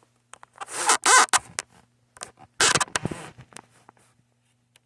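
Two short rasping scrapes with scattered clicks, a second or so apart: handling noise of a phone or camera rubbing and knocking against surfaces as it is moved, over a faint steady low hum.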